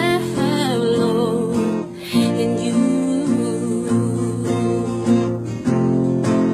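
Acoustic guitar strumming chords for the backing of a gospel song. A wavering held note fades out in the first second or so.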